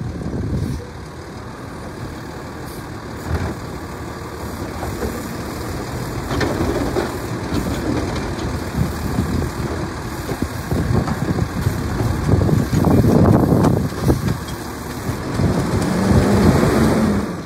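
Automated side-loader garbage truck running at the curb while its hydraulic arm lifts a wheeled trash cart and tips it over the hopper. The engine grows louder as the arm works, with clunks and rattles from the cart and its contents.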